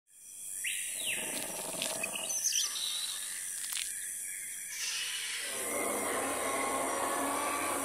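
Jungle sound effects for a channel intro: high bird calls and chirps, one sweeping down in pitch about a second in, then a denser, lower noisy sound that swells in after about five seconds.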